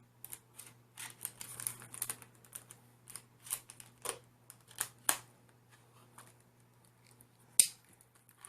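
Retail packaging of a new solid-state drive being handled and opened: irregular clicks, crinkles and snaps of plastic and cardboard, with one sharp, louder snap near the end.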